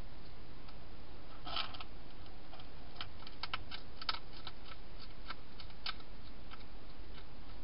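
Hedgehog feeding on dry food, giving irregular sharp crunching clicks in small clusters, over a steady low hiss.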